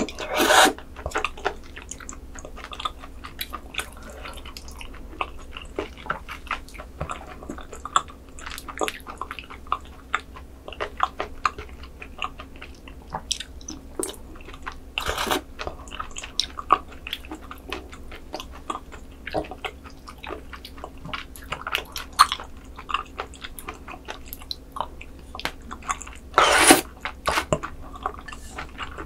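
Close-miked wet chewing of raw squid strands and sea cucumber intestines, with many small sticky mouth clicks. Three louder slurps come about half a second in, around the middle and near the end, as the slippery strands are sucked up from a dish.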